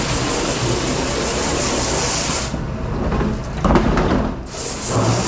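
Steady rushing water and spray hiss, typical of a dish-room sprayer or dish machine. The hiss drops out about two and a half seconds in, with a brief louder sound before it comes back near the end.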